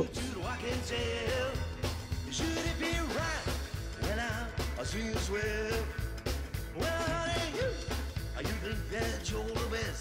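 Background rock and roll song with singing over a steady, regular bass beat.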